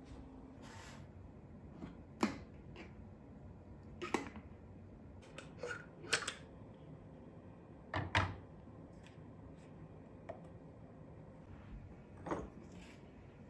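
Glass and lids being handled and set down on a kitchen counter while making French press coffee: a handful of separate clicks and knocks a second or two apart, the loudest about eight seconds in.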